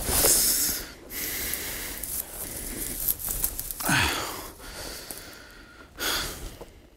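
A man breathing heavily close to the microphone: a few loud breaths over a steady hiss. The one about four seconds in slides down in pitch.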